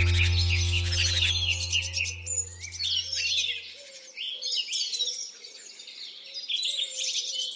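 Several songbirds chirping and singing in quick overlapping phrases. A low sustained music drone, the loudest sound at first, fades out over the first four seconds.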